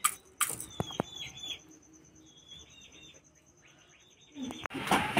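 Hen pecking rice from a steel bowl, her beak tapping the metal a few times in the first second, with faint short high chirps. Near the end a loud rustling burst begins.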